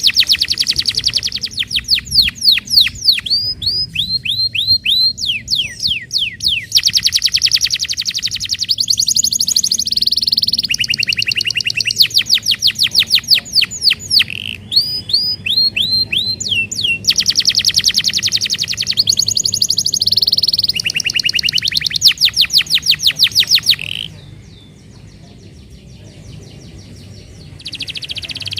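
Domestic canary singing in fast trills: runs of rapid repeated notes, some as quick downward sweeps, switching pattern every few seconds. The song breaks off about 24 seconds in and starts again near the end. This is a lure song of the kind played to prompt other canaries to sing.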